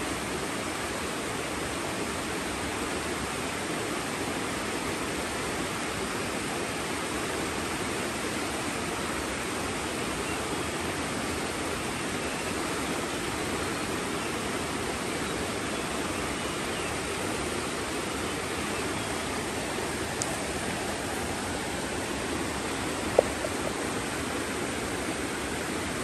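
Fast-flowing mountain river rushing steadily over rocks, an even roar of water. A single short click sounds about 23 seconds in.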